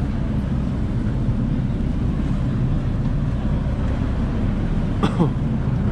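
Steady low rumble of a river waterbus's engine running close by. A brief higher-pitched sweeping sound about five seconds in.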